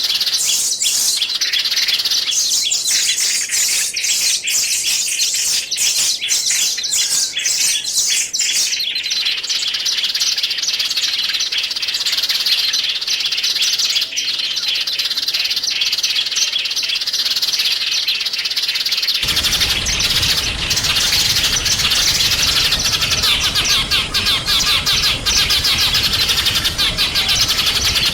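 Small songbirds chirping and twittering in rapid, high-pitched trills. About 19 s in it cuts to another bird recording with a steady background hiss underneath.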